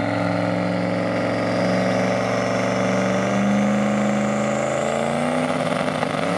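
Chevrolet Silverado pickup's engine held at high revs during a burnout, the pitch creeping slightly higher over the first few seconds and otherwise staying steady.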